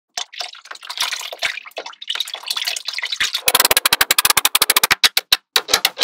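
Water pouring and splashing out of a glass bowl into a shallow pool for about three seconds, then a fast run of sharp clicks as small metal magnetic balls snap together.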